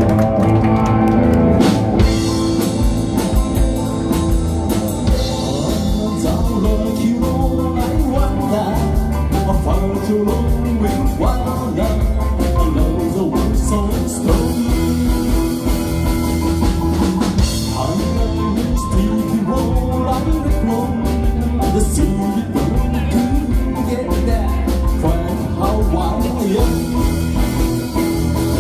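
A live band playing rock music on electric guitars, drums and keyboard, with a man singing lead.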